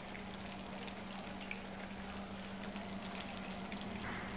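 Batter-coated pizza pinwheels frying in hot oil in a pan: a steady sizzle with scattered small crackles, over a low steady hum.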